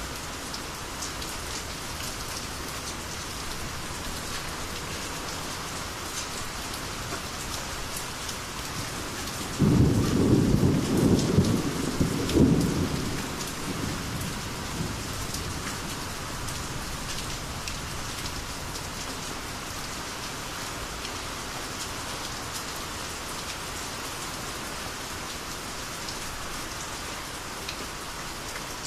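Steady rainy-season rain falling, with a loud rumbling crack of thunder that breaks in suddenly about a third of the way through, rolls for a few seconds and fades back into the rain.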